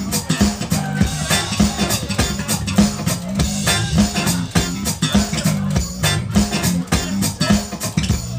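Live funky blues played loud: guitar riffing over a steady drum beat.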